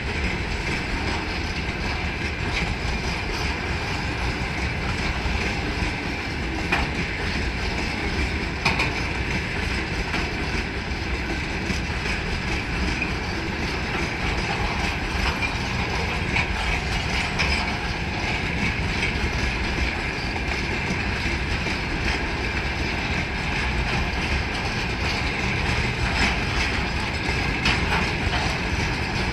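Railway tank wagons of an ammonia train rolling past: a steady rumble of wheels on the rails, with occasional clicks as the wheels cross rail joints.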